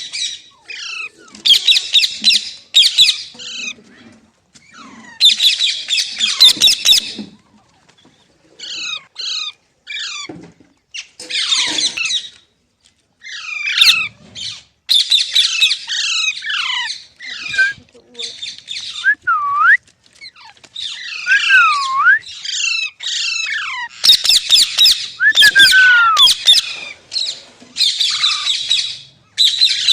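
Green rose-ringed parakeet (Indian ringneck) screeching in repeated loud, harsh bouts, with shorter chirps between them and a few clear whistled notes that glide up and down past the middle.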